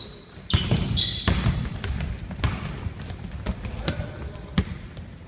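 Basketball being dribbled on a wooden gym floor: a string of irregular sharp bounces, with a few short sneaker squeaks near the start.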